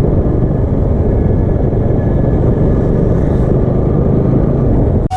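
Heavy wind buffeting on a GoPro Hero 5's microphone inside its waterproof housing with no windproof case, a loud, steady low rumble while the vehicle carrying it travels at speed. It cuts off suddenly at the very end.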